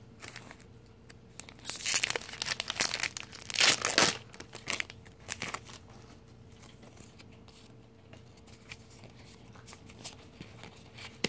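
A Pokémon Ancient Origins booster pack's foil wrapper being torn open and crinkled, in a burst of tearing and rustling between about two and five seconds in, then only faint handling clicks.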